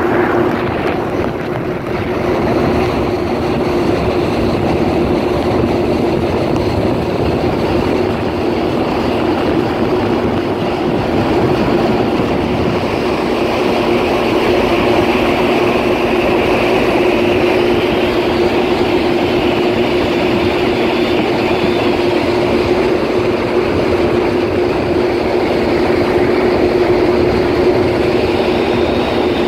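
Kawasaki jet ski engine running at a steady pitch while underway, a constant drone mixed with rushing wind and water noise. A fainter high whine comes in about halfway through.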